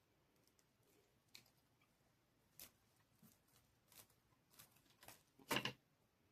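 Faint scattered clicks and taps from handling craft materials on a work surface, with a louder short double knock about five and a half seconds in.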